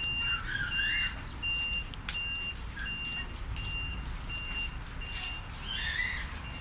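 Heavy-machine reversing/travel alarm beeping at one steady high pitch, about three beeps every two seconds, over a low diesel engine rumble. Brief higher wavering sounds come in just after the start and again near the end.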